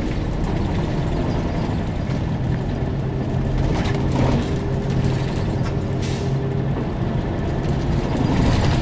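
Engine and road noise heard from inside a moving bus: a steady low rumble, with a steady hum held through the middle.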